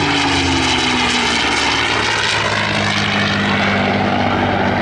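P-51D Mustang's Packard Merlin V-12 engine running as the aircraft flies past overhead. Its pitch slides down over the first couple of seconds, then holds steady.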